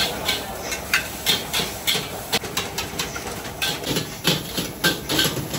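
Metal spatula and ladle scraping and clanging against a wok in quick, irregular strokes, about two to three a second, over the sizzle of food stir-frying on a high gas flame.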